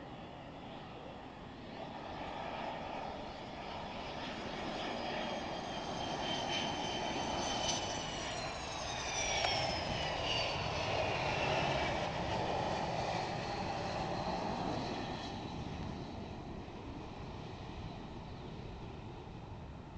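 Boeing 737 jet engines on a landing pass going by: the noise swells to a peak about halfway through, with a high whine dropping in pitch as the airliner goes past, then fades.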